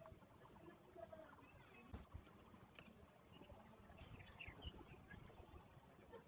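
Near silence: a faint, steady high-pitched whine, with one sharp knock about two seconds in and a fainter one just before three seconds.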